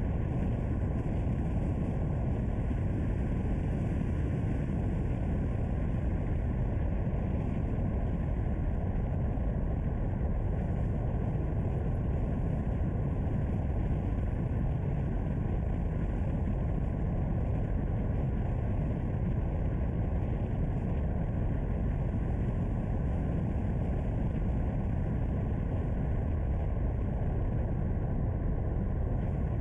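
Car driving on a mountain road: a steady low rumble of engine, tyres and wind, holding even with no sudden events.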